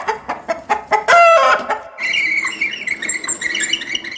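Chickens clucking, with a short, loud cackling call about a second in. About halfway through the sound changes abruptly to a softer, higher-pitched stretch, and it cuts off at the very end.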